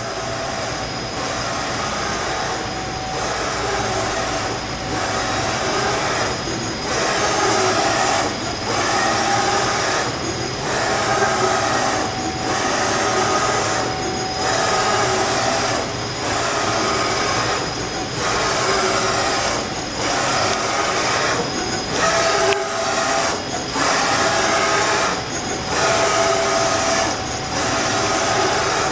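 Bridgeport Romi EZ-Path S CNC engine lathe running, a steady mechanical noise with a high whine, broken by brief dips about every two seconds in a repeating cycle.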